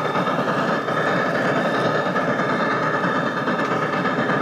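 Steam locomotive sound from a Pacific Fast Mail Sound System II, played through a loudspeaker for an HO-scale steam locomotive: a continuous rush of steam exhaust with a faint, even chuffing pulse.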